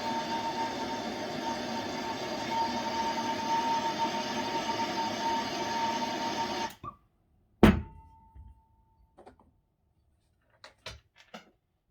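Gas blowtorch flame hissing steadily while heating a glued wheel bushing on a model locomotive axle, then shut off abruptly about two-thirds of the way through. About a second later comes a single sharp knock that rings briefly, followed by a few light clicks.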